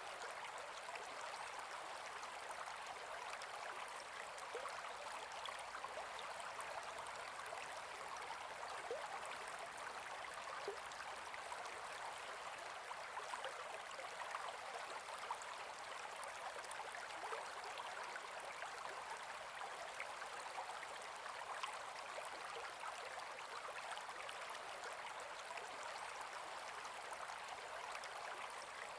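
Gentle forest river flowing: a steady, even rush of water with fine splashes and trickles, and little deep rumble.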